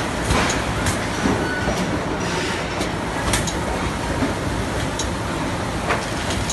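CTS automatic film-wrapping (shrink-wrap) packaging machine running: a steady mechanical noise of conveyors and drives, with sharp clacks about once a second as it cycles through wrapping the boxes.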